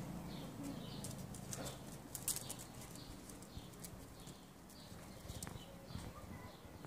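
Faint birdsong: small birds chirping in short, high, falling notes about once or twice a second, with a few soft clicks and scuffles from the dachshunds' paws on the brick paving in the first couple of seconds.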